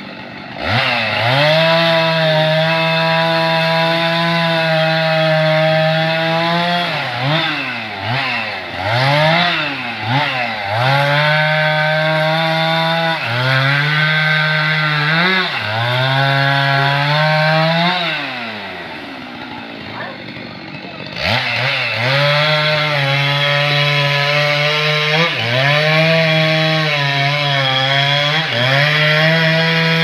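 Petrol chainsaw cutting into a tree trunk. The engine is held at high revs for several seconds at a time, dipping and picking back up between cuts. Past the middle it drops to a lower, quieter idle for about three seconds, then revs up and cuts again.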